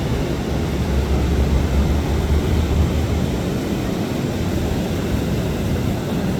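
Ocean surf breaking on the beach: a steady, deep rumble that is loudest in the first half.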